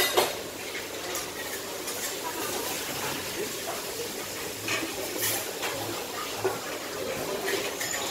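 Busy street-food stall ambience: a steady hiss with faint voices, broken by occasional short clinks and knocks, the sharpest just after the start.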